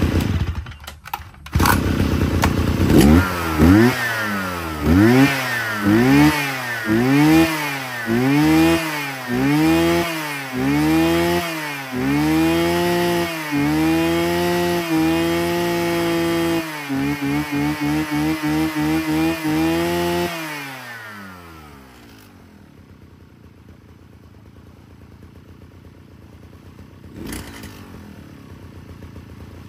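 Mitsubishi TL43 brush cutter's 43cc two-stroke engine revved in quick throttle blips, rising and falling about once a second, then held at high revs for a few seconds. About twenty seconds in the engine note falls away, leaving only a faint steady hiss.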